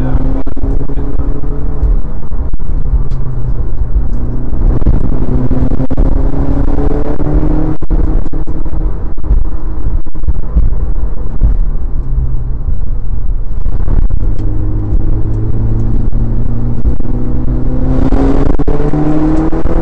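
Mitsubishi Lancer Evolution IX MR's turbocharged 2.0-litre four-cylinder heard from inside the cabin, pulling hard with its note climbing in pitch in long sweeps, one around the middle and another near the end, over steady road and wind noise. The sound is loud throughout.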